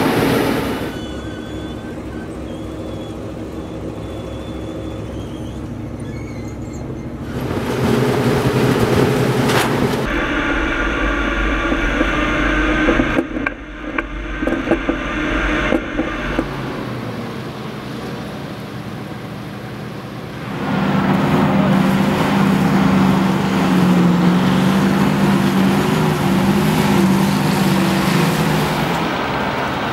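Heavy military vehicle engines running as the vehicles drive, in several shots cut together. Loudest in the last third: the steady engine note of a column of BM-27 Uragan rocket launcher trucks driving.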